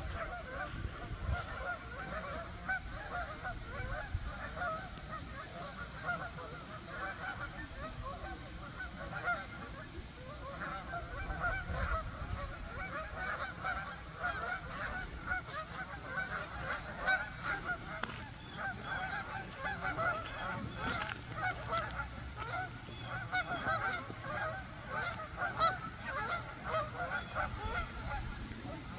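A large flock of Canada geese honking, many calls overlapping without a break.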